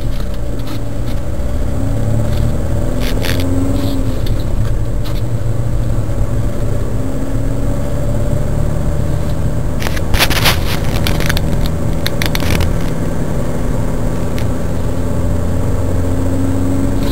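Car engine and tyre noise heard from inside the cabin while driving: a steady low drone with engine tones that rise and fall gently. About ten seconds in, a short burst of rattling clicks.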